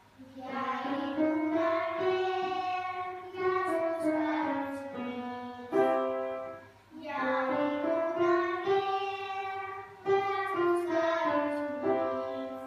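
Children singing a melody together in sung phrases of a few seconds, with short breaks between phrases about halfway through and again near the end.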